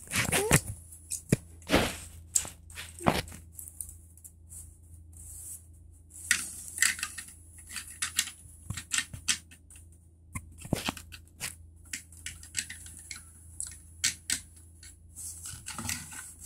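Plastic LEGO bricks clicking and clattering as hands handle them and press them together, in many small irregular clicks with a few louder knocks, over a low steady hum.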